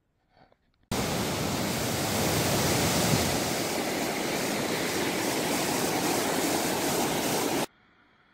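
Steady, loud rushing roar of a waterfall and the whitewater below it. It starts abruptly about a second in and cuts off suddenly near the end.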